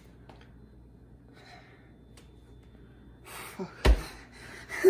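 Quiet at first, then a man's breathy exhalations and gasps, with one sharp thump just before the four-second mark that is the loudest sound.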